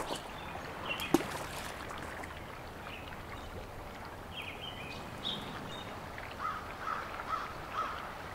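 Pond-side ambience: birds call on and off over a steady faint background. About a second in there is one sharp plop as a small stone drops into the pond, sending ripples across the water.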